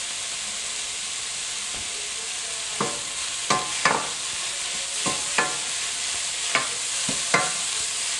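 Spinach, onions and garlic sizzling in a little fat in a nonstick frying pan. From about three seconds in, a wooden spoon stirs the wilting spinach, making a string of short scraping strokes against the pan over the steady sizzle.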